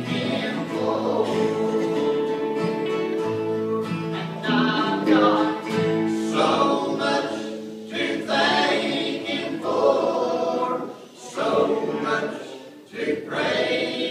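Live gospel song: voices singing in held phrases over electric and acoustic guitars.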